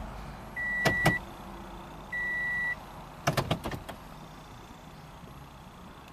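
A car's in-cabin beeper sounds a steady high beep twice, each about half a second long, and then stops. Two sharp clicks come during the first beep, and a quick run of clicks follows about three seconds in.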